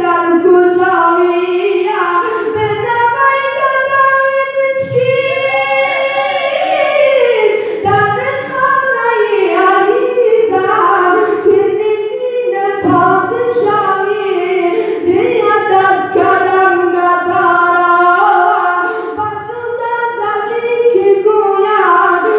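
A man's solo voice chanting an unaccompanied devotional song through a microphone and PA, holding long, ornamented high notes in phrases with short breaths between them.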